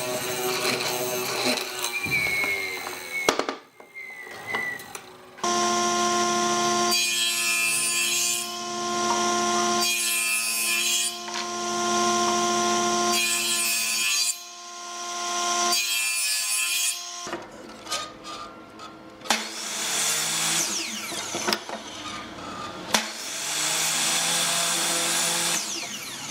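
A woodworking power tool working pallet wood: a motor running at a steady pitch, with repeated bursts of cutting noise each lasting a second or two as the wood is fed through. The tool then stops, and there are further spells of cutting or sanding noise near the end.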